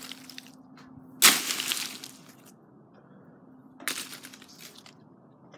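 Two short bursts of crackling noise, a louder one lasting about a second starting about a second in and a shorter one near four seconds in, over a faint steady hum.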